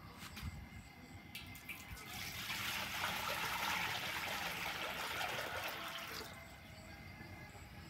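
Water running or being poured, an even splashing hiss that starts about two seconds in and stops about four seconds later.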